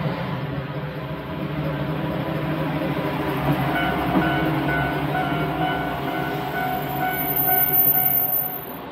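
Nagara Railway single-car diesel railcar running past close by, with engine and wheels rumbling. A steady high whine comes in about halfway through. The sound grows loudest near the end, then drops off suddenly as the car clears.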